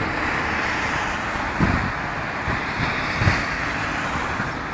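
Wind rushing over a phone's microphone: a steady noisy rush with two low buffeting gusts, about one and a half and three seconds in.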